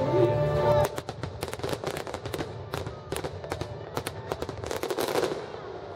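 Show music holding a chord that cuts off about a second in, followed by a rapid run of sharp firework pops and bangs that thins out and fades near the end.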